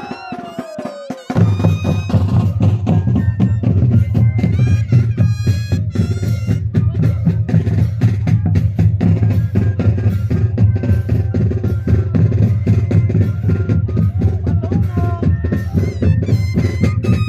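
Moseñada music: a troupe of moseño cane flutes with drums, playing loudly. The full band comes in about a second in, after a brief quieter moment with a falling note.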